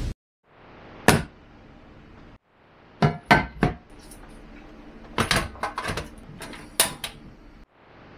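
Hard objects knocked and set down on a wooden table while cooking gear is laid out: one sharp knock about a second in, three quick clacks around three seconds, then a run of clatter after five seconds. Between them is a low room hiss that cuts in and out.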